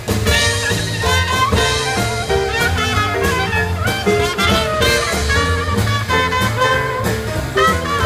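Live traditional jazz band playing an instrumental chorus in a swing rhythm: two trumpets carry the melody over double bass and drums.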